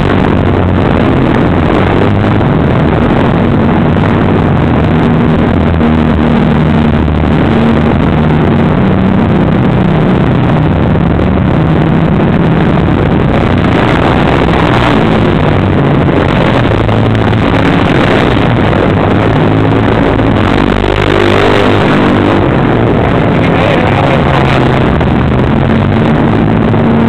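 Engines of a group of quad bikes running as they ride past in a line, the pitch rising and falling as riders rev and ease off.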